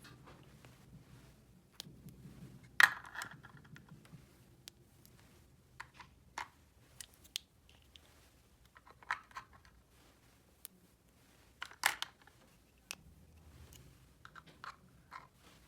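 Small plastic toy pieces being handled, with scattered light clicks and taps and two louder knocks, about three and about twelve seconds in.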